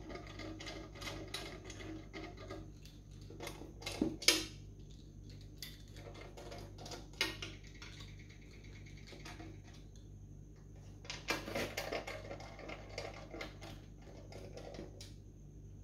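Sump bolts being spun down by hand with a screwdriver-handle driver on a long extension: irregular runs of light metal clicks and taps as the tool turns. A couple of louder clinks come about four seconds in and again around eleven to twelve seconds.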